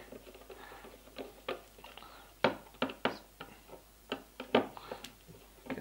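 Irregular small clicks and taps of hands handling a metal V2 gel blaster gearbox shell and tools, a dozen or so over a few seconds with a few sharper knocks in the middle.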